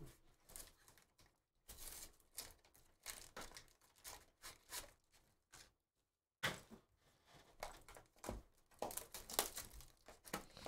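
Trading card boxes and their plastic-wrapped packs being handled and opened by hand: a run of short crinkling and tearing rustles, with a brief pause a little past the middle.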